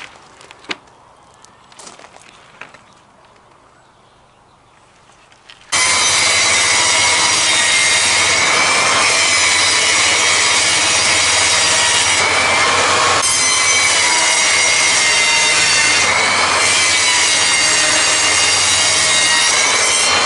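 A few light knocks of OSB boards being handled. About six seconds in, a table saw starts abruptly, loud and whining, and rips through OSB sheet with a steady cutting noise that shifts slightly as the board is fed.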